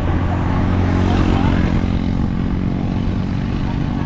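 A motor vehicle's engine running steadily at an even pitch, over a rushing noise.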